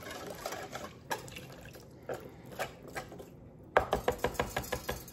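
Wire whisk stirring brine in a plastic container: the liquid sloshes, with the whisk clicking against the container now and then, then a quick run of about ten clicks near the end.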